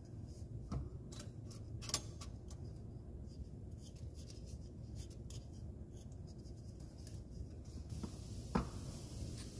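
Wooden spoon scraping and tapping against a nonstick pan as dry rice and chopped onions are stirred, a few sharper taps about two seconds in and again near the end.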